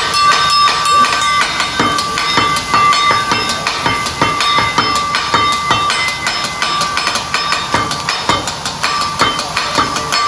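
Teppanyaki chef's steel spatulas clacking and scraping on the flat-top griddle, many quick, irregular clacks with a metallic ring, over food sizzling on the hot plate.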